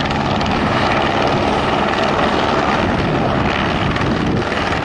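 Single-engine light helicopter of the Eurocopter AS350 Écureuil type hovering close by, a steady dense rotor and turbine noise that cuts off suddenly at the end.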